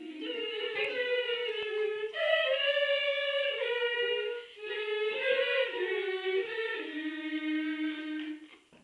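A voice singing a slow melody in long held notes, in three phrases with short breaks about two and four and a half seconds in, ending on a long low note.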